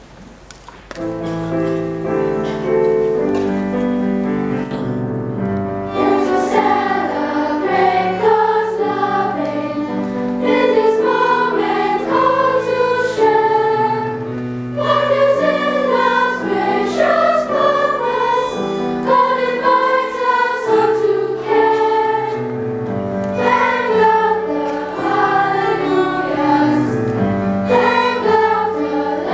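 Children's choir singing a Christian song in many voices, with a violin playing along; the singing starts about a second in.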